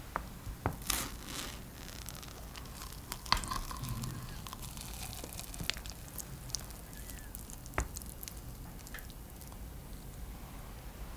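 A metal serving spatula cutting into a baked mashed-potato and minced-beef casserole with melted mozzarella and lifting a portion from a glass baking dish: soft squishing and tearing, with a few sharp clicks.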